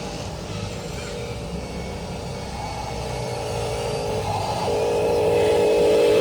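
Electric motor and gearbox of a radio-controlled construction model whining steadily, stepping up in pitch a little over halfway through and getting louder toward the end.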